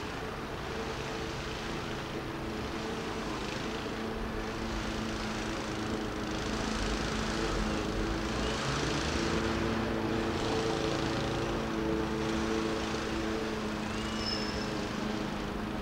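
A distant engine drone with several held tones over a steady hiss, growing louder through the middle and easing off again; a brief high bird chirp near the end.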